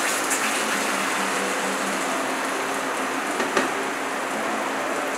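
Puree sizzling and frying in hot ghee in a pan, a steady hiss, with a single knock about three and a half seconds in.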